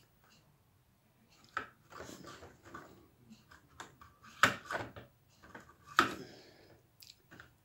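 Plastic clattering and knocking as a paint-bottle turntable made from empty filament spools is rotated and airbrush paint bottles are handled in its tiers. The knocks come irregularly, with two sharp ones, about four and a half and six seconds in, the loudest.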